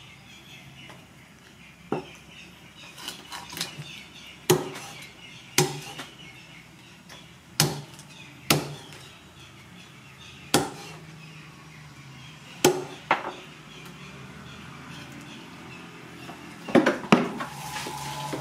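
Cleaver chopping barbecued rats into pieces on a wooden chopping block: about a dozen sharp chops at uneven intervals, two in quick succession near the end.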